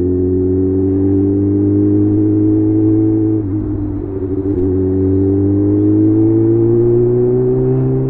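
Kawasaki ZX-6R's inline-four through a Leo Vince aftermarket exhaust, pulling under throttle with the revs slowly rising. About three and a half seconds in, the pitch drops and wobbles for about a second on an upshift, then climbs steadily again.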